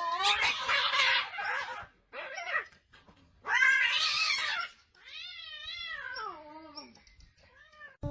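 Cats fighting: two harsh screeching spats, then a long wavering caterwaul yowl that drops in pitch at its end.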